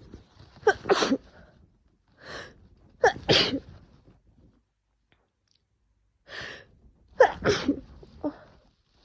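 A woman sneezing three times in a fit, with a quick in-breath before each of the later two. She is coming down with a cold.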